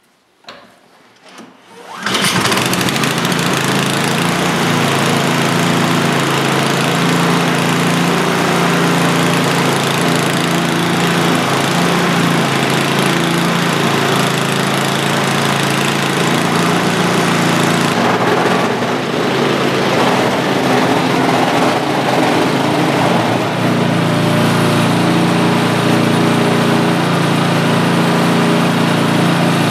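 Poulan Pro PP521ES snowblower's 136cc four-stroke engine pull-started from cold on choke: two short tugs, then it catches about two seconds in and runs steadily, its note shifting a little around 18 and 24 seconds in.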